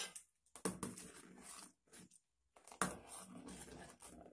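A steel ladle stirring thick coconut milk in an aluminium pot, scraping along the pot and knocking against its sides, with sharp clinks about a second in and again near three seconds.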